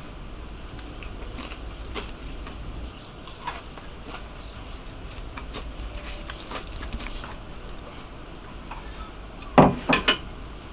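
Faint small clicks and crackles as a crisp ginger biscuit is broken and handled, then near the end a mug is set down with two or three loud knocks.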